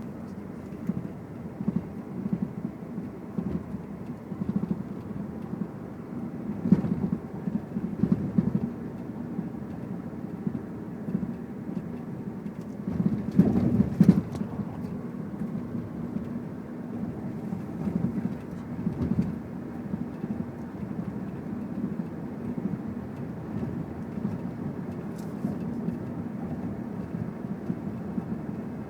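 A 2001 Infiniti i30 with a steady low rumble and irregular knocks from the right front wheel area, loudest about halfway through. The knocking began after the engine mounts were replaced, and the owner suspects the strut, sway bar bushings, a ball joint or the right-side engine mount.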